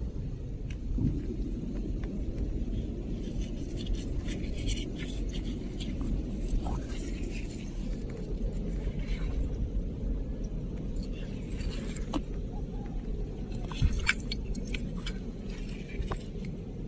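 Seashells clicking and scraping as a rubber-gloved hand picks them up and handles them, in scattered runs of small clicks with a sharper knock about fourteen seconds in, over a steady low rumble.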